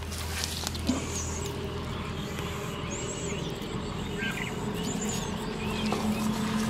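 Small birds chirping, short high calls every second or two, over a low steady hum; a single soft knock about a second in.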